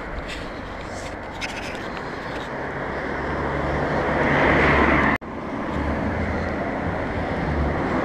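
Street traffic: a car passing close, its tyre and engine noise swelling to a peak about five seconds in and then cutting off suddenly, over a low rumble.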